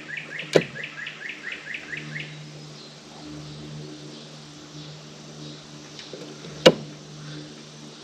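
A songbird giving a quick run of about a dozen repeated chirps over the first two seconds, over a low steady hum. Two sharp clicks cut through: one about half a second in and a louder one near the end.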